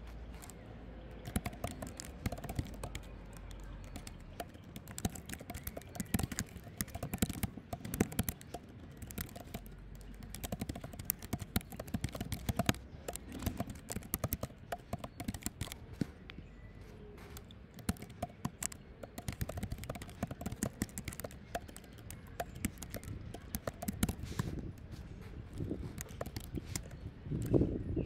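Typing on a computer keyboard: irregular runs of key clicks with short pauses between bursts.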